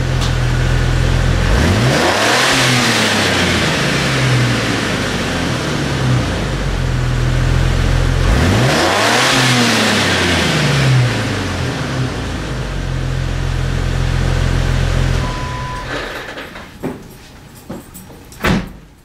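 2004 Jeep Wrangler TJ with a Dynomax Super Turbo cat-back exhaust idling, blipped twice with the pitch rising and falling each time, about 2 and 9 seconds in. The engine is switched off a few seconds before the end, followed by a few sharp knocks.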